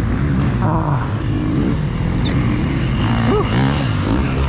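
KTM electric dirt bike under way on a dirt track: the electric motor whines, its pitch rising and falling with the throttle, over a steady rush of wind and tyre noise.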